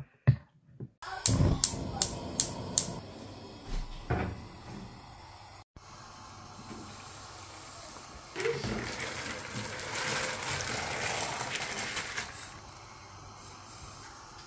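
Water running for about four seconds, starting about eight seconds in, after a few sharp clicks near the start.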